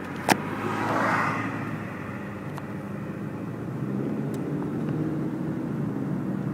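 Car driving noise heard from inside the cabin: a steady engine and tyre rumble, with one sharp click a fraction of a second in and a brief rush of hiss around a second in.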